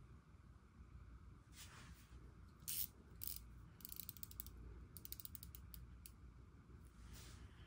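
Faint ratcheting clicks from a wristwatch being handled, a few single clicks and two quick runs of clicks about four and five seconds in, with a soft rustle near the start and again near the end.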